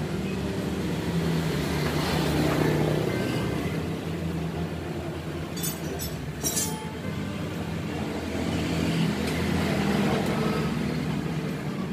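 A motor vehicle engine running with a steady low hum that swells slightly twice, with a few light clicks about six seconds in.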